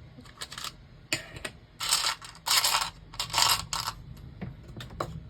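Small plastic LEGO pieces clattering and rattling in a pot as a hand rummages through them looking for a tile, in several short bursts over the first four seconds, then a few lighter clicks.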